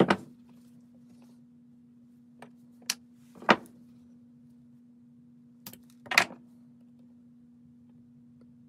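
Short sharp clicks and knocks of hand work with pliers on a plastic fuel tank and fuel line, about five in all, the loudest about three and a half and six seconds in, over a steady low hum.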